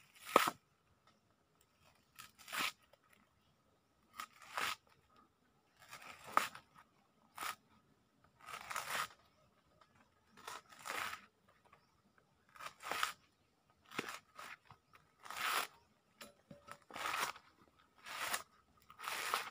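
Brittle tamarind pod shells crunching and cracking as they are broken open and peeled by hand, in short separate bursts about once a second, over a faint steady high tone.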